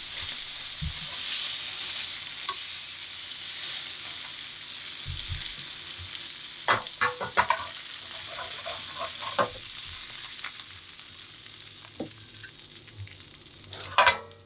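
Black bream fillets sizzling in butter in a hot frying pan, a steady hiss, broken by a few sharp clicks of a utensil against pan and plate about halfway through and again near the end as the fillets are lifted out onto a plate.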